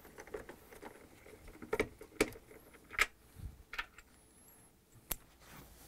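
Faint, irregular metallic clicks and ticks from a half-inch socket ratchet working the bolts out of a washer's counterbalance weight.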